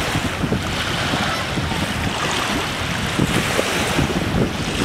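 Wind buffeting the microphone over the steady wash of small waves on open water.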